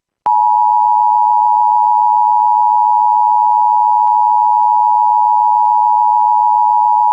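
Emergency Alert System attention signal: the steady two-tone 853 Hz and 960 Hz alarm tone, loud and unchanging. It starts about a quarter second in and marks the start of an emergency alert broadcast.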